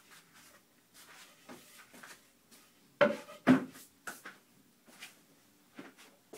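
Scattered knocks and clunks of things being handled and set down, with two loud knocks about three seconds in, half a second apart. The router is not running.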